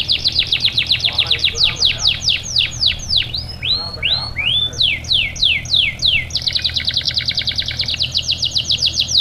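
Domestic canary singing: a continuous run of quick, high, downward-sweeping whistled notes, several a second, with a few slower rising-then-falling notes in the middle. About two-thirds of the way in it breaks into a faster, tighter trill.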